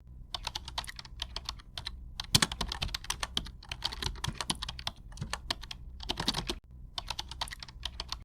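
Typing on a keyboard: quick, irregular key clicks in runs with short pauses, over a low hum.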